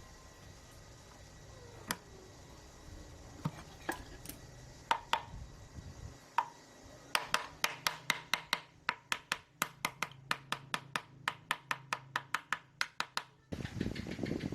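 Metal work on an engine: a few separate sharp metallic clicks, then a quick even run of metallic taps or clicks, about four a second, for several seconds. A louder, even noise starts near the end.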